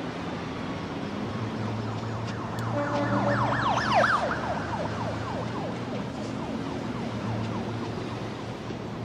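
A siren yelping in fast, repeating falling sweeps, swelling about three seconds in, peaking at about four seconds and fading after, over steady city traffic noise and a low hum.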